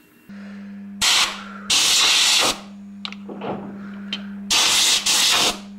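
Compressed-air blow gun blasting debris out of a stepper-motor rotor held in a lathe chuck: three long hissing blasts with a few short puffs between them. A steady low electrical hum sounds underneath.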